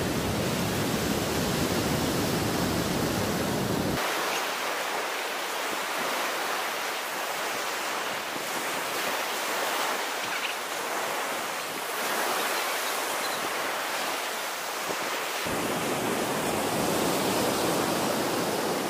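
Surf breaking and washing up a sandy beach, with wind buffeting the microphone. The low wind rumble drops away about four seconds in and comes back near the end.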